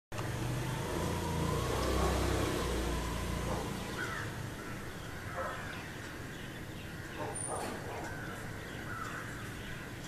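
Low vehicle engine rumble that fades out after about three and a half seconds, with short bird calls and chirps scattered throughout.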